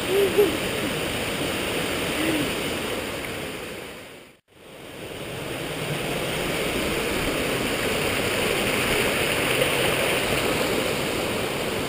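Rushing water of a rocky forest stream tumbling over small cascades, a steady hiss. About four seconds in it fades out to a moment of silence, then fades back in.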